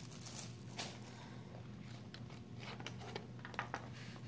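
Faint clicks and taps of a plastic fork on a foam takeout container as a forkful of waffle is picked up and bitten, over a steady low room hum.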